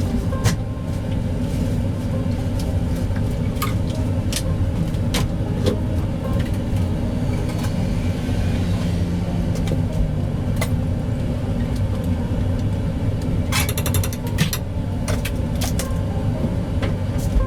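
A steady low mechanical hum runs throughout, with scattered short clicks and knocks and a quick run of rattling clicks a little past halfway.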